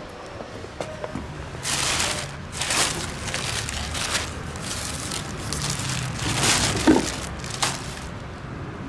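Thin plastic carrier bag rustling and crinkling in irregular bursts as it is handled and opened, starting about a second and a half in, with a brief sharp sound about seven seconds in.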